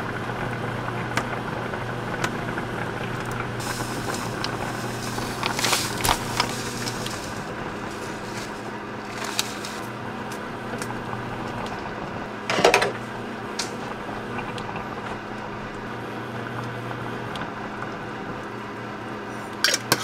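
A pot of squid and radish braise simmering on an induction cooktop, with the cooktop's steady electrical hum under the bubbling. Kitchen scissors snip chili peppers over the pot, giving a few short sharp clicks, the loudest about two-thirds of the way through.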